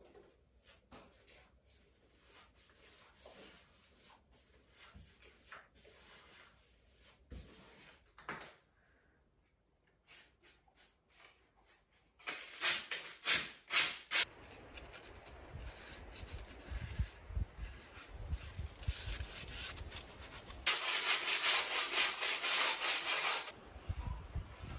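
Sponge scrubbing a window frame and sill: rapid back-and-forth rubbing strokes that start about halfway through and are loudest near the end. Before that, faint soft strokes of a paintbrush on a wooden ceiling beam.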